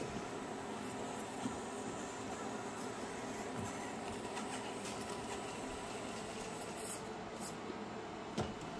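Faint steady mechanical whirring hum with a few light clicks and taps.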